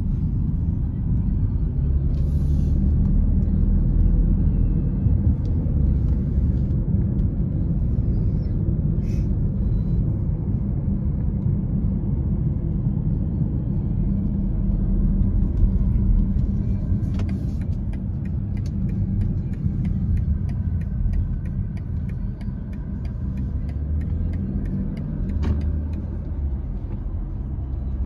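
Steady low rumble of a car driving, heard from inside the cabin: engine and tyre noise. A faint, quick, regular ticking joins about two-thirds of the way through.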